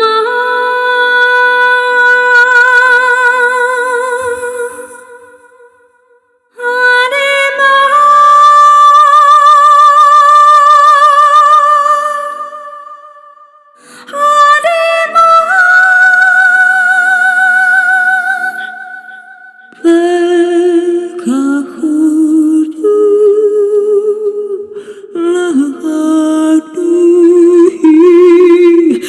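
Findasound's "Clara's Vocal" Kontakt library, a sampled solo female voice, singing wordless vowel tones with vibrato. It holds three long notes of about five seconds each, each a step higher than the one before, then from about twenty seconds in moves into a quicker phrase of shorter, lower notes.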